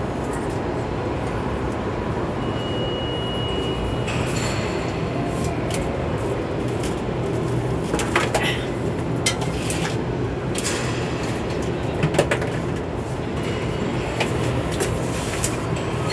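A steady low mechanical drone with a constant hum, broken by a few sharp clanks and clicks of metal being handled, two of them about 8 and 12 seconds in.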